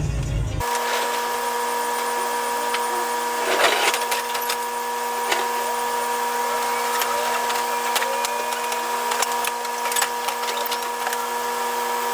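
Steady mechanical hum with a constant whine, starting abruptly about half a second in, with a few faint clicks scattered through it.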